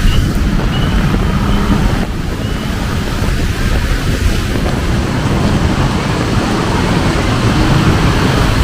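Heavy tropical downpour, a dense steady rush of rain, with wind rumbling on the microphone.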